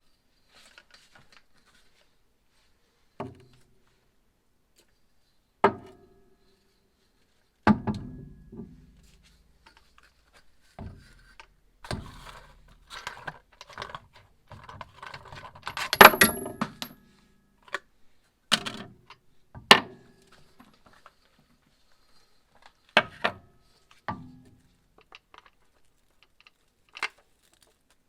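Workshop handling sounds: separate sharp knocks and clinks of metal tools or parts being picked up and set down, with a busier stretch of clatter in the middle that peaks about two-thirds of the way through.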